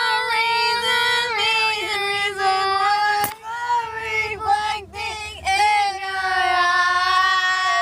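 A female voice singing long, high held notes with a wavering pitch, in a few phrases with short breaks; the last note is the longest, held for about two seconds.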